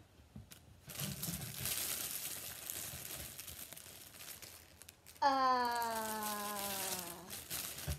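Plastic packaging rustling and crinkling for about four seconds as a squishy toy is handled in its bag, then a girl's voice hums one long note that slowly falls in pitch for about two seconds.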